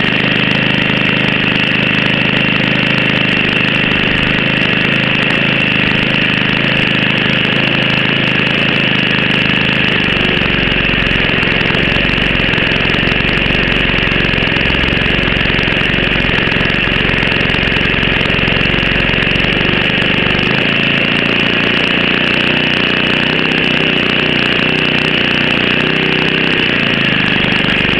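OS 70 Surpass four-stroke glow (nitro) engine on a model plane running steadily at an unchanging speed, loud and even throughout.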